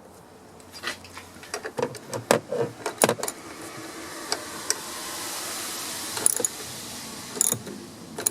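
Metal wrenches clinking and knocking against the bolt and nut of a van's sliding-door check while the bolt is tightened. There is a quick run of sharp clinks early on, a soft hiss in the middle, and a few more single clinks near the end.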